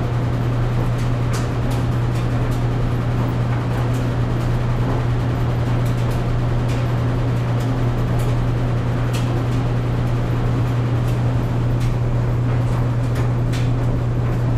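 Clothes dryer running: a steady low hum under an even rush of noise, with light clicks scattered at irregular intervals.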